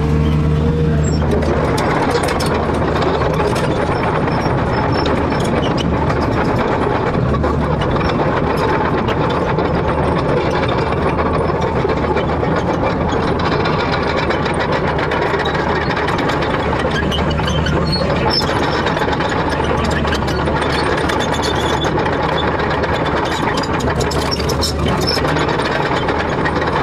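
Hydraulic excavator's diesel engine running steadily, with scattered knocks and clanks of metal throughout.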